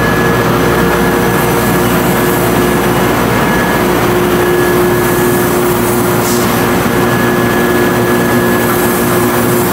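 Narrow-web flexographic label press running: a loud, steady mechanical drone and hiss with several steady whining tones over a low rumble.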